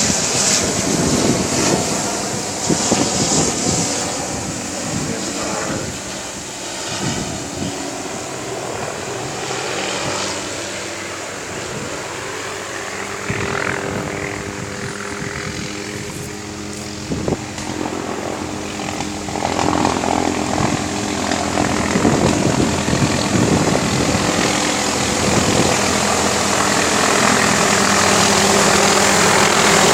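MD 500 helicopter approaching to land, a steady rotor and engine drone that grows louder over the second half.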